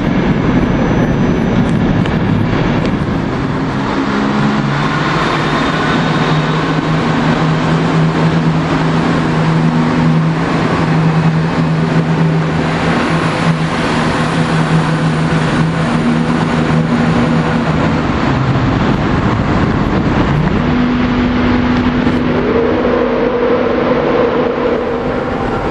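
Class 91 electric locomotive of an InterCity 225 train drawing into the platform, with a steady low electric hum from its traction equipment over general running noise. About three-quarters of the way through, the low hum gives way to a higher tone that rises and then holds.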